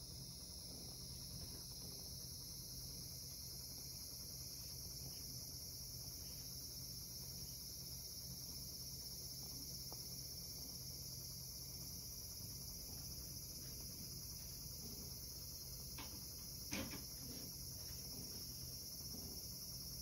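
Cicadas singing in a steady, high-pitched chorus. A faint click and then a short knock, the loudest sound, come about three-quarters of the way through.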